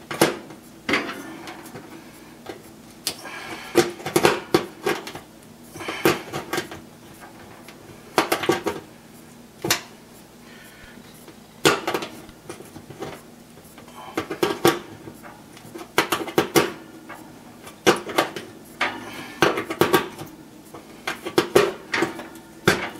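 Adjustable wrench clinking on the terminal screw and mounting tab of an oven bake element while it is tightened: short clusters of sharp metal clicks every second or two as the wrench turns and is set back on.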